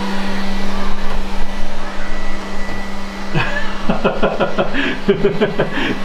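Lefant F1 robot vacuum running on carpet: a steady motor hum with a constant airy hiss of suction.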